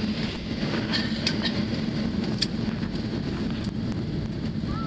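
Cabin noise inside a Boeing 737-800 rolling along the runway: its CFM56 jet engines running with a steady low drone and hum. A few sharp clicks sound about one and two and a half seconds in.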